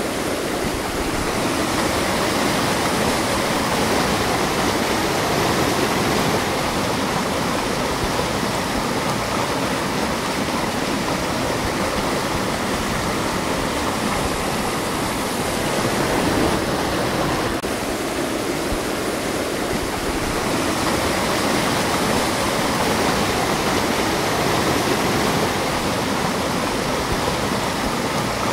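Creek water rushing over rocks and a small waterfall, a steady rushing hiss.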